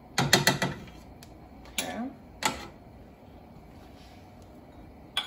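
A metal spoon knocked against the rim of a saucepan several times in quick succession, then two more single knocks, as tomato paste is tapped off the spoon into the pot.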